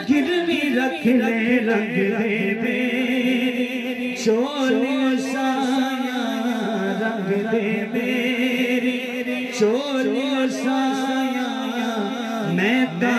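A man's voice singing a naat unaccompanied over a PA system, holding long notes with wavering, ornamented turns.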